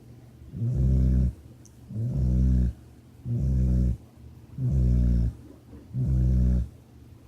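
Rhythmic snoring: five snores, each just under a second long, one about every second and a quarter, with short quiet breaths between.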